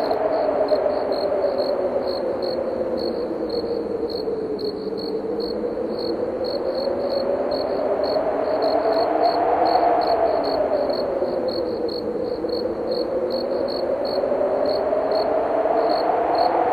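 Crickets chirping in a steady run of short, high chirps, two to three a second, over a howling wind. The wind's pitch slowly falls and rises again and swells loudest about ten seconds in.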